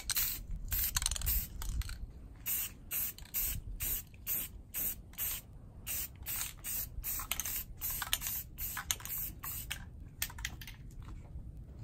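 Aerosol spray paint can (Rust-Oleum 2X Ultra Cover flat black paint-and-primer) spraying in short hissing bursts, about two a second, as the nozzle is pressed and released again and again.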